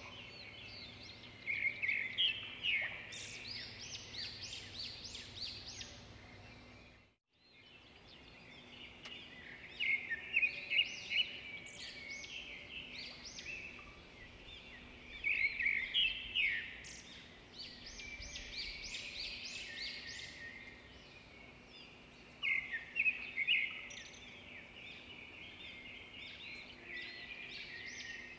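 Small birds chirping, many short quick notes coming in busy bursts. The sound drops out briefly about seven seconds in.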